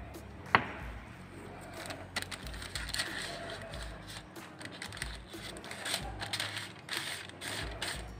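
A sheet of paper crinkling and rustling in a run of short crackles as a spatula is wiped clean on it, after one sharp knock about half a second in.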